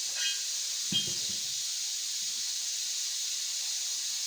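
Compressed air hissing steadily from a leak in the shop air hose's connection. A brief knock with a faint squeak comes about a second in.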